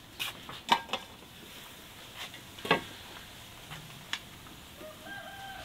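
A metal pot lid and a steaming cooking pot being handled: a few sharp clinks and knocks of metal on metal. A steady high tone starts near the end.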